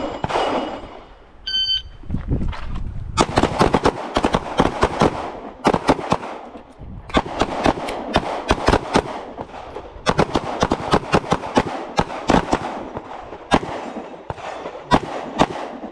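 A short electronic start beep, then a line of handguns firing a drill, the shots overlapping in fast clusters for about twelve seconds with brief lulls between strings, which fits the shooters' speed reloads.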